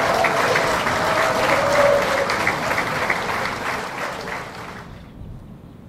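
Crowd applause, a dense patter of many claps, loud at first and dying away over the last couple of seconds.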